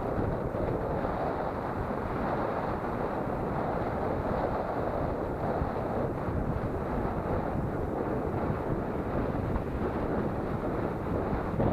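Steady wind buffeting the microphone on an open pier, a continuous low rumbling rush.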